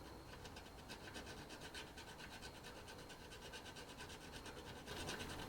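A small file rasping across the breaker points of an antique Briggs & Stratton engine in quick, repeated short strokes, scraping corrosion off the contacts.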